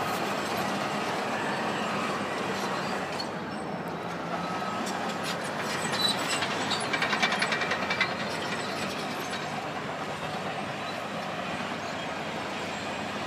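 Heavy machinery running with a steady rumble, with a rapid metallic clatter for about two seconds, around six seconds in.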